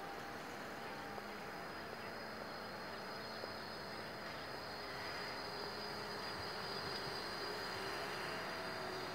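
Tram running with a steady high-pitched electrical whine over a low rumble of rolling and street noise, with faint wavering lower tones.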